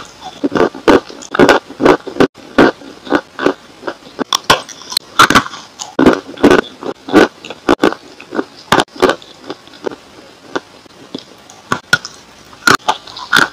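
Crunching bites into and chewing of a dry, chalky grey block. The crunches are sharp and irregular, coming a few times a second.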